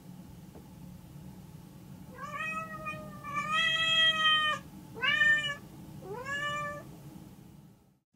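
Domestic cat meowing four times in a row, the second call the longest and loudest, the last two shorter and rising in pitch at their start.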